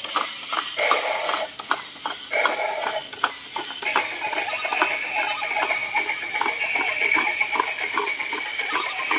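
Battery-powered walking toy gorilla stepping on concrete: a rapid run of clicks from its geared walking mechanism and plastic feet, over electronic sound played through its small built-in speaker.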